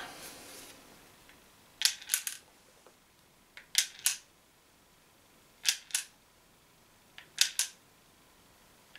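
Umarex HDP50 .50-calibre CO2 pistol firing steel balls: four shots about two seconds apart, each a sharp double crack.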